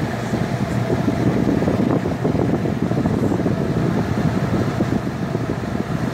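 1966 Admiral Royal 106 window air conditioner running, with a steady hum from its motor and compressor. Its blower pushes air out of the front grille, which buffets the microphone with a rough, fluttering rush.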